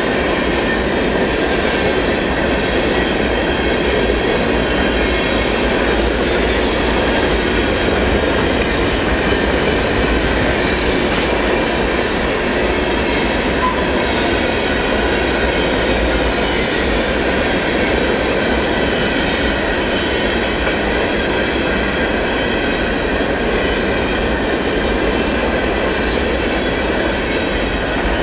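Freight train rolling past, a steady loud rumble and clatter of wheels on rail.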